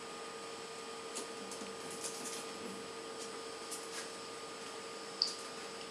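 A steady hum with a constant whine, with a few faint ticks and scratches over it.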